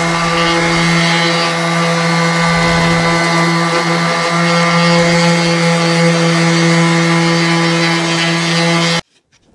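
Hitachi electric sheet sander running steadily, its 100-grit paper pressed against a pitted fog light lens to grind off the damaged top layer. The motor cuts off abruptly about nine seconds in.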